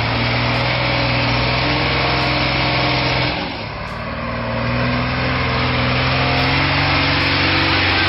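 A heavy vehicle's engine running hard at a steady pitch. It eases off briefly about three and a half seconds in, then builds up and holds again.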